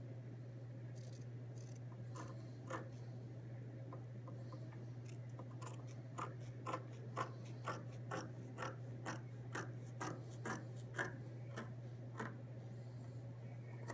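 Scissors cutting through layered fabric: a few isolated snips, then a steady run of snips at about two to three a second from about six seconds in, stopping near the end. A steady low hum runs underneath.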